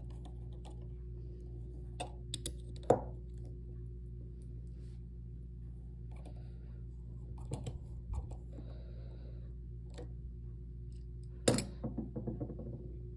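Steel digital caliper clicking and knocking against a metal bike stem while its depth rod is set into the stem's machined pocket: a few scattered sharp clicks, the loudest about three seconds in and another group near the end, over a steady low hum.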